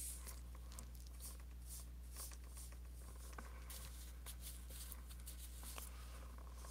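An artist's brush working oil paint on the palette and canvas, as a string of faint, short brushing and scratching strokes. A steady low hum runs underneath.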